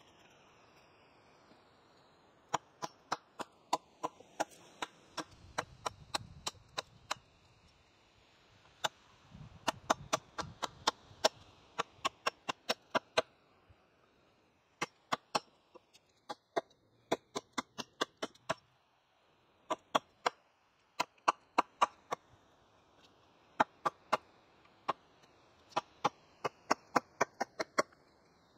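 Hatchet chopping a wooden pole: quick, sharp strikes, about three a second, in runs of a few seconds with short pauses between.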